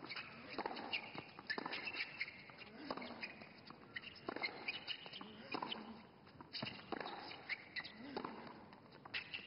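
Tennis rally on a hard court: sharp pops of the ball struck by rackets and bouncing on the court, about one a second, with short grunts from the players on some strokes and footsteps between shots.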